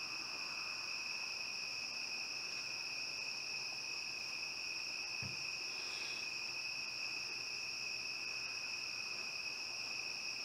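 Crickets singing in a steady, unbroken chorus, a continuous high trill, with a faint low knock about five seconds in.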